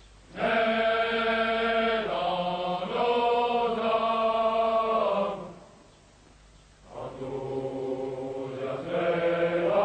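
Men's chorus of French Foreign Legion soldiers singing a slow regimental marching song together: two long phrases of held notes, with a pause of about a second and a half between them.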